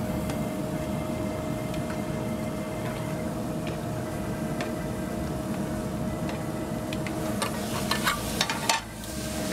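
Steady rumble and hiss of commercial gas range burners, with ground chicken sizzling under a lidded aluminium skillet and a faint steady hum throughout. Near the end come a few sharp metal clinks as the lid is lifted off the pan with a spoon.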